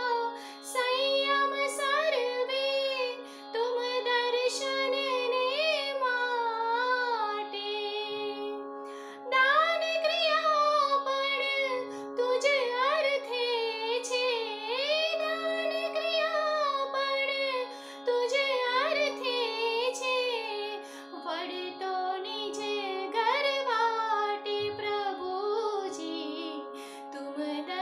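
Woman singing a Jain stavan, her melodic lines bending and wavering in pitch, over a steady drone.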